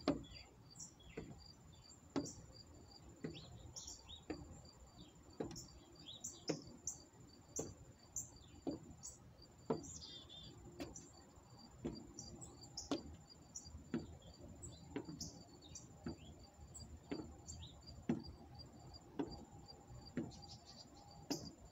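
Running shoes stepping on wooden deck boards in a steady march, about two steps a second. A constant high insect trill and scattered bird chirps run underneath.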